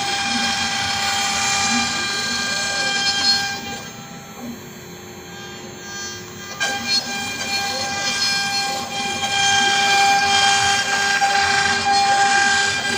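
Axiom AR8 CNC router machining wood. Its water-cooled spindle whines at a steady pitch, and the axis motors rise and fall in pitch as the gantry moves. About four seconds in, the cutting noise drops away and turns duller for two or three seconds, then comes back at full level.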